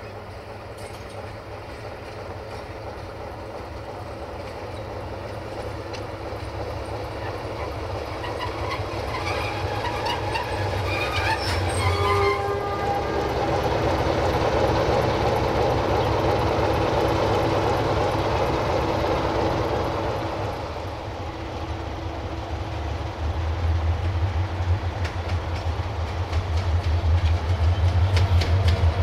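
A CFR 060-DA diesel-electric locomotive hauls passenger coaches past, its engine and the clatter of wheels over rail joints growing louder, with a few brief high tones about ten to twelve seconds in. In the last several seconds a second diesel, a GM-built EGM621 locomotive, runs with a loud, deep hum.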